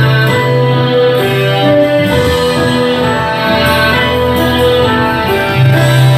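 Gospel hymn music with guitar and long held notes over a steady bass line.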